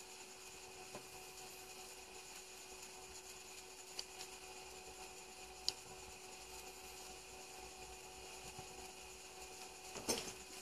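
Quiet room tone: a faint, steady electrical hum with a thin high whine, broken twice by small sharp clicks, about four and five and a half seconds in, as a hand-held magnifier is handled.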